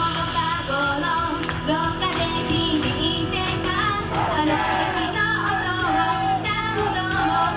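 Live band music: a singer over guitar and drums.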